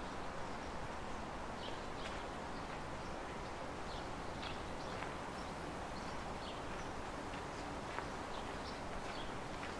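Footsteps of a person walking on a leaf-strewn dirt trail, about two steps a second, over a steady outdoor hiss.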